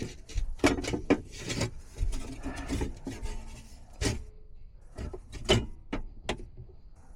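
Irregular knocks, clicks and scraping from someone moving about and handling things.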